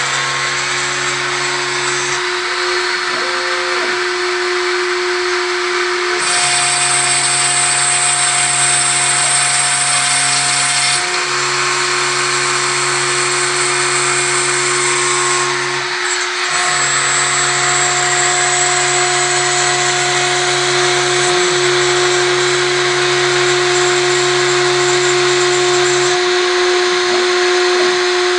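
CNC router spindle running steadily with a constant whine while a 2 mm cutter mills 3 mm acrylic sheet. Further machine tones change every few seconds as the cut moves along.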